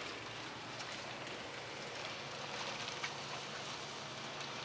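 Water splashing steadily into an aquarium holding tank from its return pipe, a continuous rain-like patter on the water surface, over a low steady hum.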